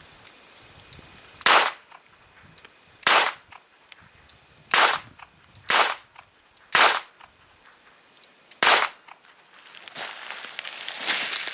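A revolver fired six times single action, each CCI small pistol primer going off with a sharp pop, a second or two apart with faint clicks between: no misfires. A rustling hiss starts near the end.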